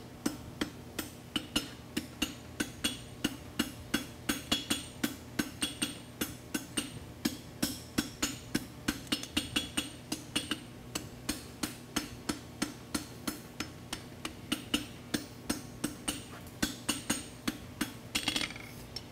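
Hand hammer striking red-hot folded concave steel bar on an anvil in a steady run of blows, about three a second, closing up the end of the stock before forge welding. A faint steady hum runs underneath.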